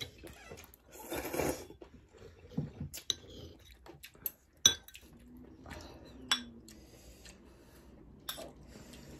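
Chopsticks and a metal ladle clinking against ceramic bowls and a metal pan while eating. There are scattered sharp clicks, the loudest about halfway through, and a brief noisy slurp of noodles about a second in.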